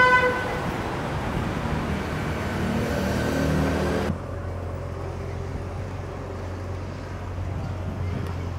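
City road traffic: a short car horn toot at the start, then cars passing by. About four seconds in, the sound changes abruptly to a quieter, steady traffic hum.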